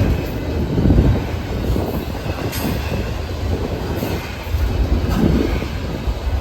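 Norfolk Southern train's cars rolling along the track, a steady low rumble of wheels on rail with a few faint clicks.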